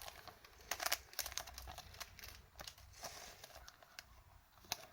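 Soft crinkling of plastic and foil card packaging being handled, with scattered light clicks, densest about a second in, and a sharp single tap near the end.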